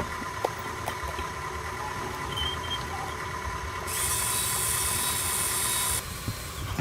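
Electric motors and gearboxes of a remote-control toy excavator or truck running, a steady whine over a low rumble. About four seconds in, a loud hiss joins for two seconds, and then the whine drops out suddenly.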